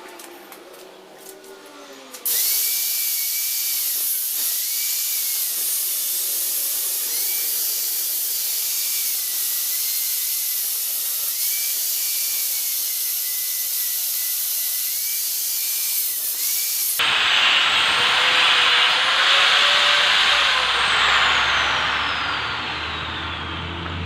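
Handheld electric power tool, drill-like, running on the motorcycle engine's stripped bolt hole whose threads no longer bite, starting about two seconds in, its whine dipping and recovering as it loads up. Around two-thirds of the way through it turns louder and harsher, and near the end its high whine slides down as it spins down.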